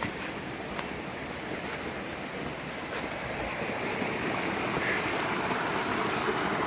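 Rushing stream water, a steady wash that grows gradually louder, with a few faint ticks.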